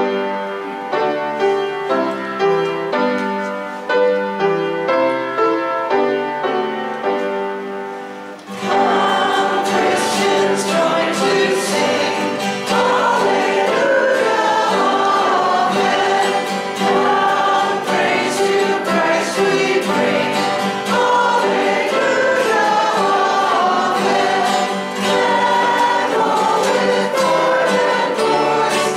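A hymn: an instrumental introduction of struck chords, each fading away, then about eight seconds in a congregation joins in singing together with the accompaniment.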